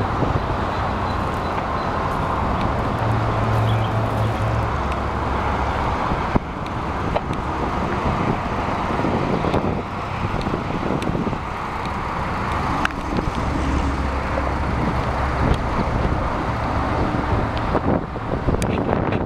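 Steady vehicle rumble mixed with wind noise on the microphone.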